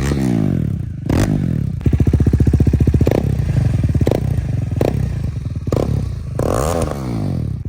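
KTM Duke 390's single-cylinder engine running with its exhaust removed, very loud. The throttle is blipped, the revs rise and fall about a second in and again near the end, and between them it settles to a fast pulsing idle with a few sharp pops.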